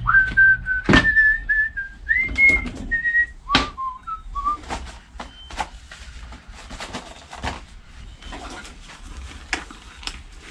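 Someone whistling a short tune of a few held notes that steps down in pitch and stops after about four seconds, with two sharp knocks along the way. After that come light clicks, taps and rustling from parts and cloth being handled on a workbench.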